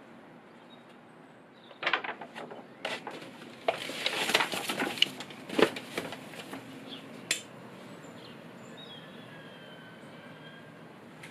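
Paper notebook pages being handled and turned: a run of clicks and crinkly rustles starting about two seconds in and dying away after about seven seconds.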